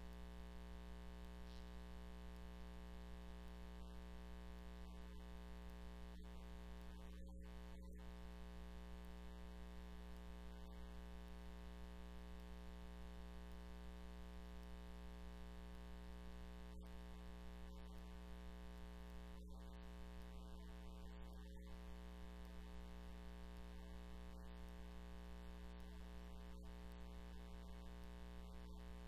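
Steady electrical mains hum with a stack of even overtones, unchanging throughout; nothing else is heard.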